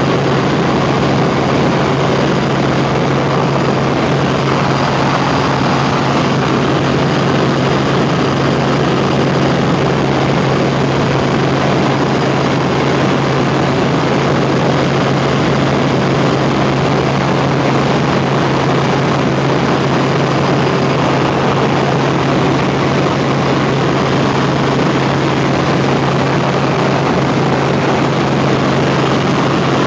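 Helicopter in flight: the steady drone of its engine and rotors, an even rushing noise over a strong, constant low hum.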